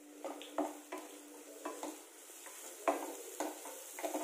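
Wooden spatula stirring chopped onions and green chillies frying in oil in a pan: irregular scrapes and knocks against the pan over a steady sizzle, with one sharper knock about three seconds in.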